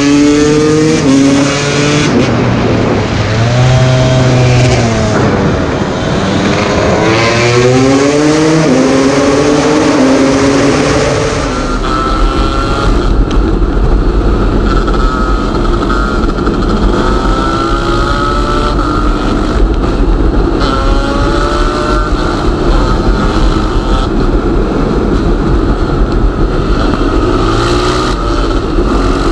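Two-stroke KTM dirt bike engine revving hard, its pitch repeatedly climbing and dropping as it pulls through the gears. About a third of the way in the sound cuts to another run, with a steady low rumble under the engine.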